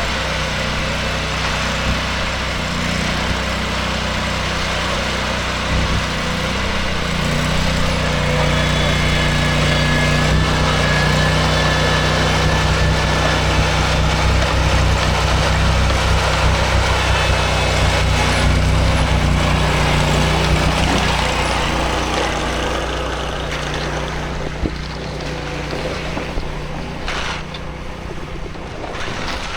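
An engine running steadily, its hum rising and getting louder about seven seconds in, holding, then easing off after about twenty seconds.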